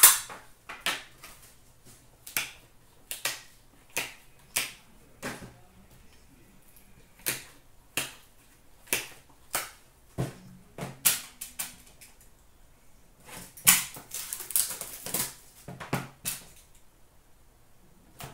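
Trading-card boxes and cards being handled on a glass counter: a string of irregular sharp clicks and taps, with a denser run of rustling and scraping about three-quarters of the way through.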